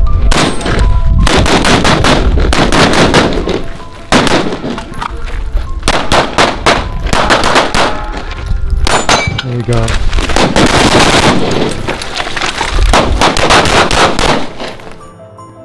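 Rapid strings of gunfire from pistols and carbines, several shooters firing shot after shot with short breaks between strings, over background music. The shooting fades out near the end, leaving only the music.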